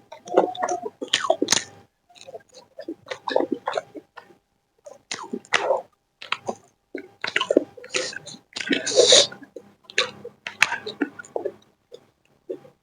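Close-miked mouth sounds of a person eating chicken liver and gizzard with singju salad: irregular chewing and lip smacking in short bursts, with one louder hissing burst about nine seconds in.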